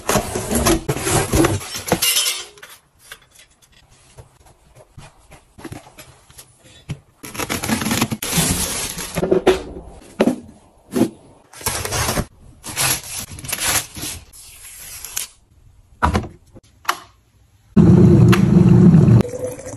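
Parcel unboxing: packing tape pulled off a cardboard box, and cardboard and plastic wrapping rustling and scraping in bursts. Near the end comes a loud rush lasting about a second and a half from an electric kettle heating water.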